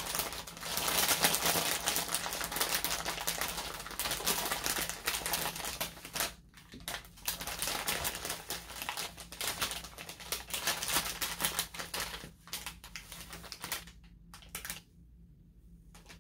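Clear plastic bag of dry preserved sheet moss crinkling and crackling as hands press and rummage in it: a dense run of fast crackles with a few short pauses, dying down near the end.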